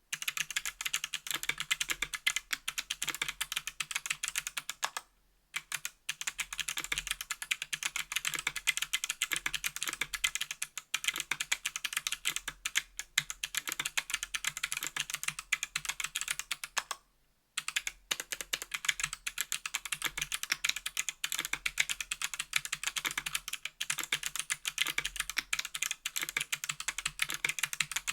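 Continuous fast typing on a 60% aluminium mechanical keyboard with Kailh BOX Crystal Jade clicky switches, each keystroke giving a sharp click, with brief pauses in the typing about five seconds in and again about seventeen seconds in.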